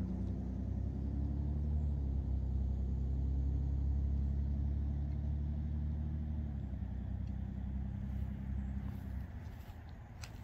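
A vehicle engine running with a steady low hum. Its note changes about two-thirds of the way through, then fades away near the end.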